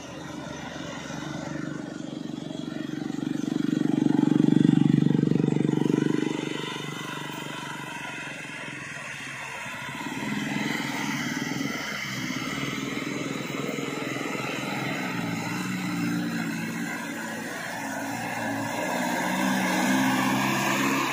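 Vehicle engines on a steep mountain road, swelling loudest about five seconds in. Then the engine of a heavily loaded medium bus pulls uphill, its pitch shifting as it draws nearer.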